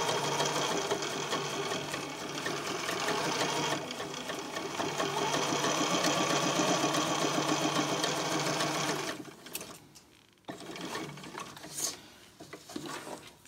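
Computerized sewing machine stitching a seam at a steady speed, easing off briefly about four seconds in, then stopping after about nine seconds. Afterwards there are faint fabric-handling sounds and a single click.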